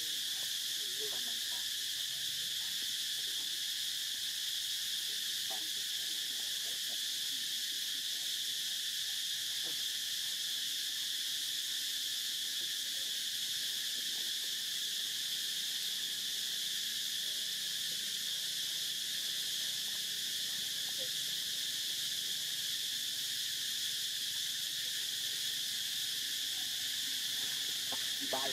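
A steady, high-pitched chorus of insects droning without a break.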